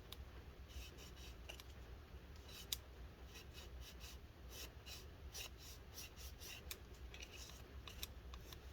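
Faint, irregular light scratches and scrapes of a small tool scrubbing powdery residue off a laptop component, over a faint low hum.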